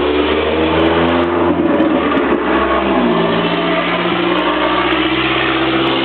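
Car engine running while driving, its pitch dropping and then climbing again a couple of seconds in as the engine speed changes.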